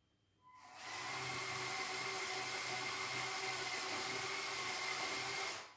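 Electric motors and gear trains of a Lego Technic rope shovel whirring as the shovel moves its dipper toward the pile: a steady whir with a high whine that comes up about half a second in and stops abruptly near the end.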